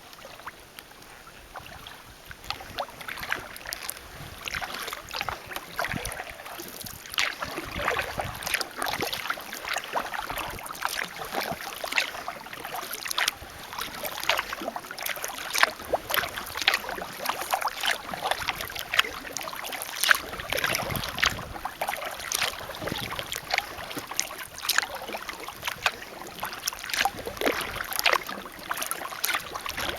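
Kayak paddle strokes in calm water: steady small splashes and drips from the paddle blades, quieter at first and busier from a few seconds in.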